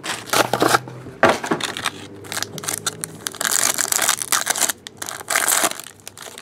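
Foil wrapper of a baseball trading-card pack being torn open and peeled apart by hand, a run of crackling rips and crinkles.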